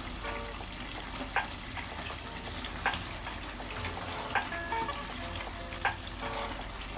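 Wooden spoon stirring a thick beef bhuna in a pot, scraping against the pot about every second and a half, over a steady sizzle of the curry cooking down at its nearly-done stage.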